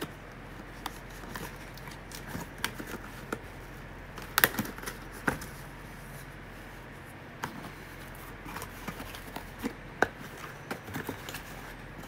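Cardboard retail box being handled and opened by hand: scattered taps, scrapes and rustles of the cardboard flaps, with the sharpest knocks about four and a half, five and a half and ten seconds in.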